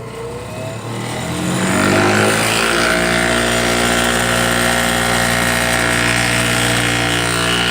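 Harbor Freight 8-inch bench grinder motor spinning up, its pitch rising for about two seconds, then running at full speed, really loud and vibrating hard: its axle is badly out of alignment.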